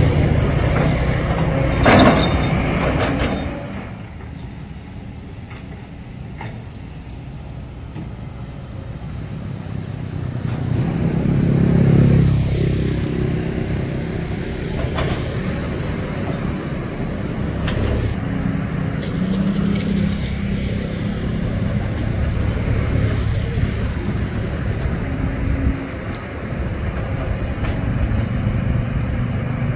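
Kobelco SK200 hydraulic excavator working: its diesel engine runs steadily, with the level swelling and easing as the machine digs. A sharp knock comes about two seconds in.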